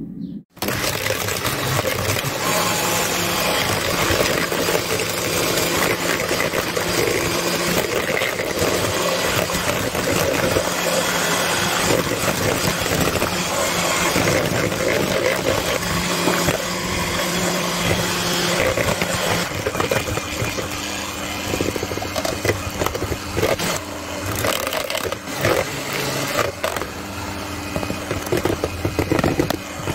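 Electric hand mixer running steadily, its beaters whisking through thick cake batter. The motor starts about half a second in.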